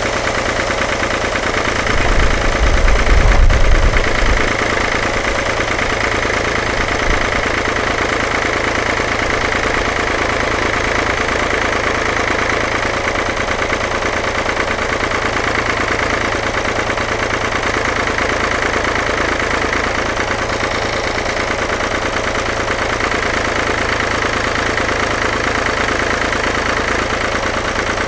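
David Brown tractor engine running steadily, driving the hydraulics of a trailer-mounted log loader as its grapple lifts a tamarack log. A deep low rumble swells for a couple of seconds near the start.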